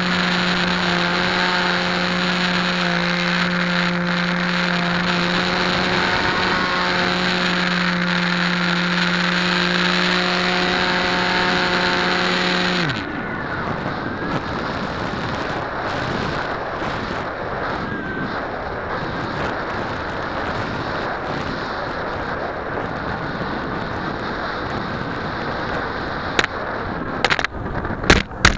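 Hobby King Bixler RC plane's electric motor and pusher propeller running at a steady pitch, heard from the onboard camera. About halfway through the motor is cut and its pitch drops away, leaving wind rushing past the plane as it glides. Near the end there are several sharp knocks and scrapes as the plane touches down and skids on sand.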